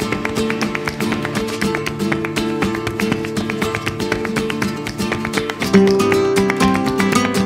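Background music: an acoustic guitar playing a quick run of plucked notes, a little louder from about six seconds in.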